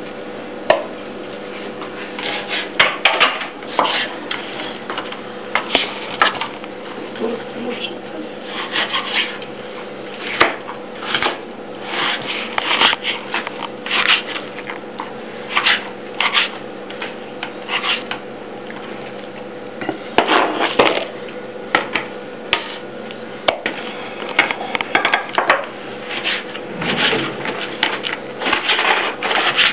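Kitchen knife cutting catfish into chunks on a plastic cutting board: irregular knocks and taps of the blade against the board, some in quick runs, over a steady low hum.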